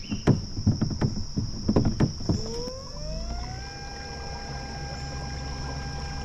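Sharp knocks, about three a second, for the first two seconds. Then the whine of an electric kayak trolling motor rises in pitch over about a second as it spins up, and holds steady.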